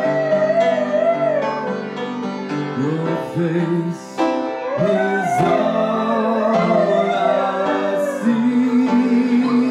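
Piano chords played along with a Husky Malamute dog howling: long wavering howls that often start low and slide upward.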